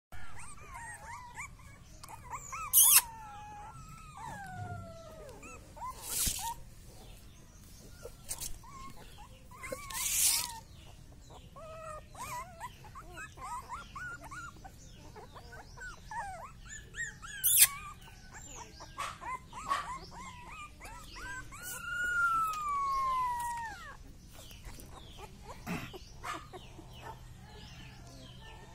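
Young Rottweiler puppies whining and squeaking throughout, in many short high whimpers and a longer falling whine about 22 seconds in. A few brief, loud noisy rustles stand out over them.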